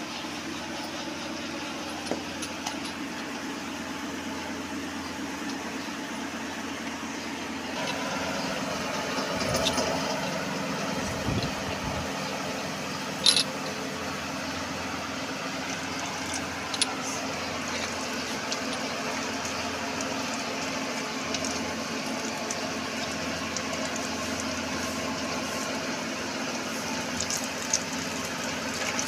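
Steady mechanical hum of a running motor, with a few sharp clicks.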